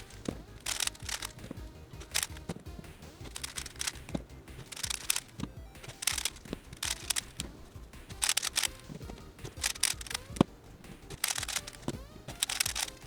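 Background music, with short irregular bursts of plastic clicking and scraping from Rubik's cubes being twisted.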